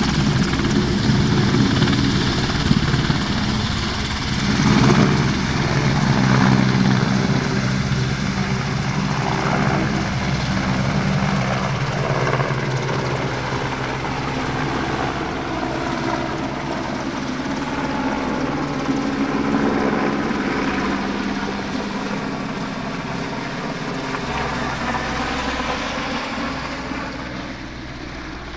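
AgustaWestland AW101 helicopter's rotors and three turbine engines running at high power as it lifts off and climbs away. The sound fades over the last few seconds as it moves off.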